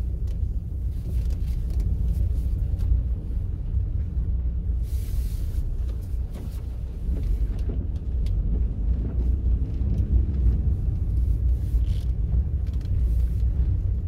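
Low, steady rumble of a car's engine and tyres, heard inside the cabin while driving slowly across a wet lot, with a brief hiss about five seconds in.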